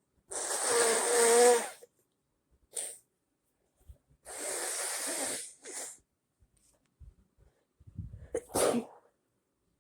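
A person sneezing in a series of bursts: two longer breathy ones, the first with a wavering voiced tone, and a sharp one near the end. The sneezing is set off by body spray.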